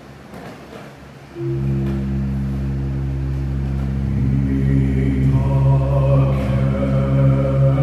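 Pipe organ comes in suddenly about a second and a half in with a held chord over a steady low bass note. A few seconds later a man's voice starts chanting over the organ.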